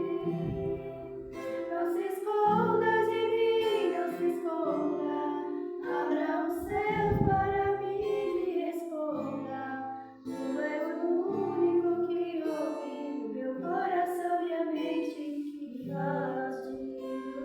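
Women's voices singing a Christian hymn in Portuguese, with acoustic guitar accompaniment.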